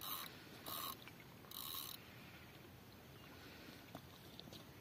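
Spinning fishing reel ratcheting in three short bursts about two-thirds of a second apart while a hooked carp is being played, then only faint background.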